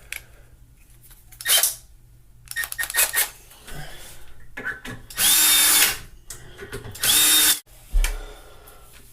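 Milwaukee M12 cordless hex screwdriver running in short bursts as it drives one-inch drywall screws into wood: a few brief spurts, then two longer runs of about a second each.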